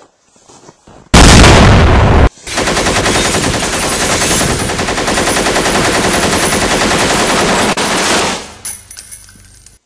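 A grenade explosion effect: a sudden loud blast about a second in that lasts about a second. After a short break comes a rapid, steady run of automatic gunfire for about six seconds, which fades out near the end.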